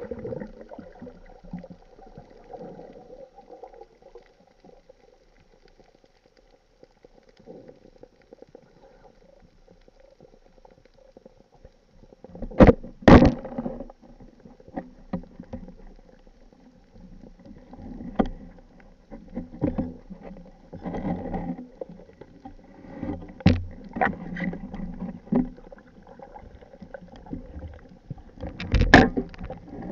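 Underwater sound picked up by a camera on a speargun: a low, muffled water rumble and gurgle with sharp knocks and clicks, the loudest a pair about a dozen seconds in and another near the end.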